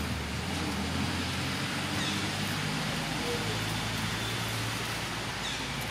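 Steady outdoor background hiss with a low motor hum underneath, and two faint, short high chirps.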